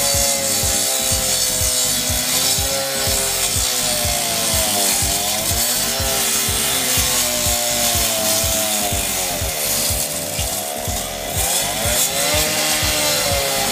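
Petrol cut-off saw with its blade cutting through asphalt. The engine runs loud and steady, its pitch sagging and then recovering several times as the blade bites into the pavement under load.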